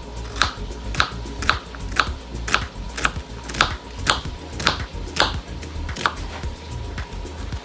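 Kitchen knife slicing a peeled onion on a plastic cutting board, each cut ending in a sharp click of the blade on the board, about twice a second in an even rhythm.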